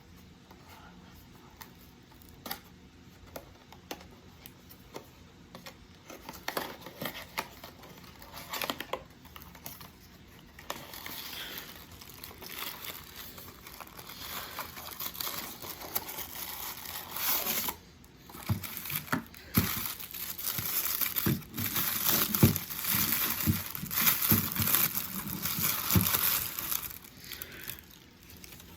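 Packaging being handled, crinkled and torn open. Scattered small clicks and knocks at first, then louder, continuous rustling from about ten seconds in.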